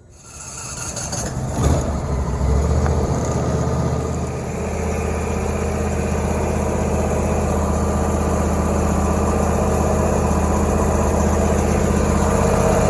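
Briggs & Stratton 44J677 V-twin engine starting up, then running at a steady speed, its intake manifold O-rings freshly replaced to cure a vacuum leak.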